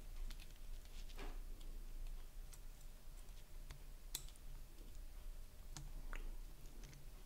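Faint, scattered small clicks and crackles from soldering a wire onto a pin of an XLR panel connector with a soldering iron, over a low steady hum.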